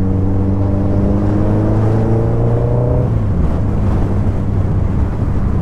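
Suzuki Hayabusa inline-four engine pulling under load on the move, its note rising steadily in pitch for about three seconds. The rising note then breaks off, leaving steady wind and road rush with a lower engine hum.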